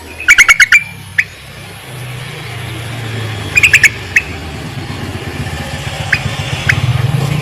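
Female yellow-vented bulbul calling: a quick burst of about six sharp notes near the start, another burst of four notes about three and a half seconds in, and single short notes between. A low rumble runs underneath, getting louder toward the end.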